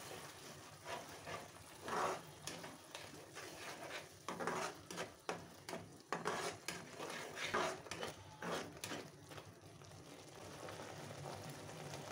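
Spices and onions sizzling in hot oil in a non-stick kadai while a silicone spatula stirs and scrapes the pan in uneven strokes; the stirring stops about three quarters of the way through, leaving a steady sizzle.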